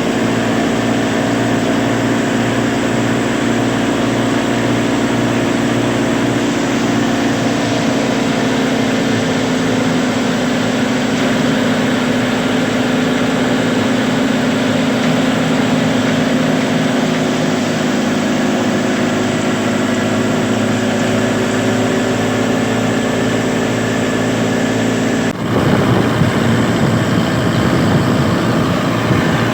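Wheat thresher machine running steadily: a loud, continuous mechanical hum with a steady pitch. The sound changes abruptly about 25 seconds in.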